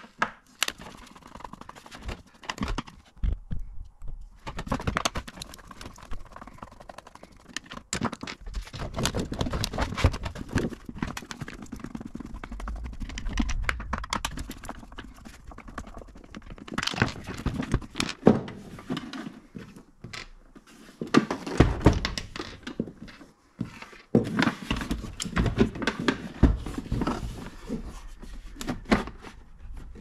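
Irregular clicks, knocks and thunks of hands working on a Henry vacuum's plastic top housing: a T15 Torx driver undoing the screws that hold it together and the plastic shell being handled apart.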